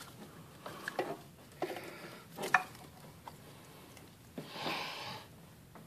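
Small clicks and knocks of parts and connectors being handled in a car engine bay during disconnection work, with a brief rustling hiss near the end.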